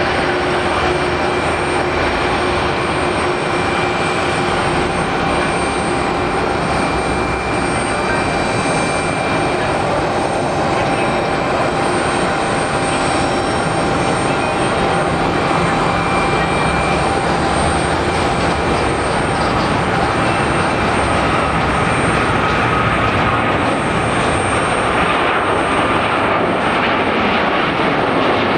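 Boeing 777 jet engines at high power for takeoff: a loud, steady roar with a few thin whining tones over it.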